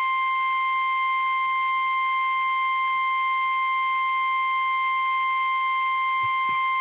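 NOAA Weather Radio warning alarm tone, the single 1050 Hz tone, held steady and unbroken. It signals that an emergency warning broadcast is about to follow.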